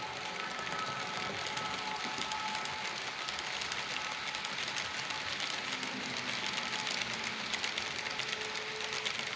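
H0-scale model passenger train rolling past on the layout track: a dense, steady rattle and clicking of the coaches' small metal wheels over the rails and rail joints.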